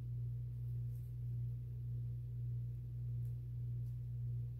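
A steady low hum, with a few faint light ticks over it.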